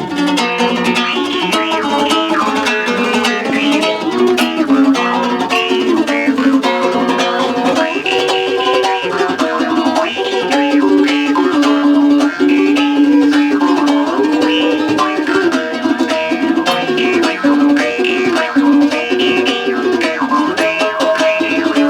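Background instrumental music led by a plucked string instrument playing a quick, busy melody.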